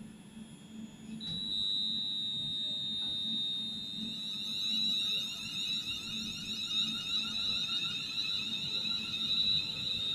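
Class 350 Desiro electric multiple unit pulling away, its traction equipment giving a steady high whine from about a second in, with fainter higher tones rising in pitch as it gathers speed, over a low rumble from the wheels.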